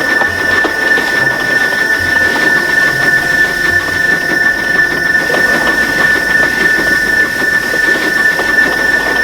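A steam locomotive's whistle stuck open, sounding one unbroken high note over the steady rush and clatter of the engine running along. A jammed whistle valve screaming non-stop.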